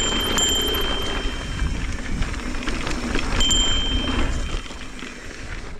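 Mountain bike rolling fast down a dirt singletrack: tyre noise on the dirt and wind rumble on the camera, with a thin high-pitched whine that sounds twice, about a second and a half at the start and briefly past the middle. The noise eases off near the end.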